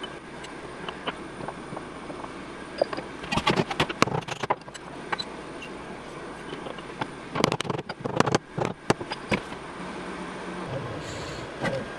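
Metal clinking and clattering as an aluminium workpiece plate and the vise parallels are handled and reseated in a machine vise, in two bursts about three and a half and seven and a half seconds in, over a steady low hum.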